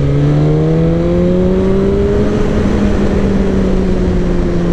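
Sport motorcycle's engine pulling under acceleration, its pitch rising steadily for about two seconds and then holding level, with wind rushing over the rider's microphone.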